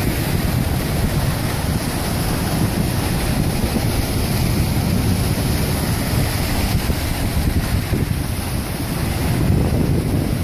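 Surf breaking and washing over shoreline rocks, with strong wind buffeting the microphone and a steady low rumble.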